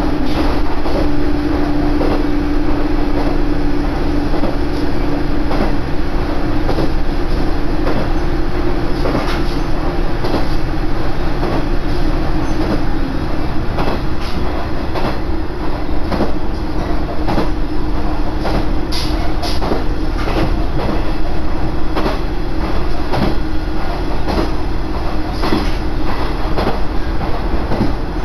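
Koumi Line diesel railcar (KiHa 110 series) running along the line, heard from inside the car: a steady engine drone under the rumble of the wheels, with irregular clicks from the wheels passing over rail joints.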